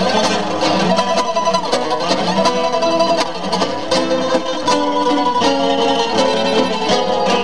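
Two acoustic guitars playing a tango together, one picking a melody of quick plucked notes over the other's accompaniment.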